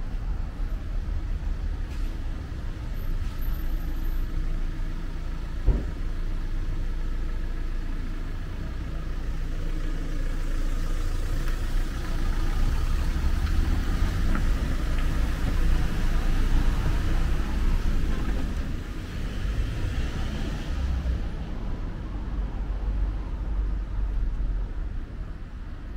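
City street traffic: a motor vehicle's engine running close by with a steady low rumble. There is one sharp knock about six seconds in, and a louder stretch of passing traffic from about ten seconds in to about twenty.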